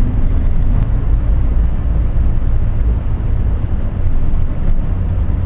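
Road and engine noise inside the cabin of a Nissan Serena C24 taxi driving in traffic: a steady low rumble.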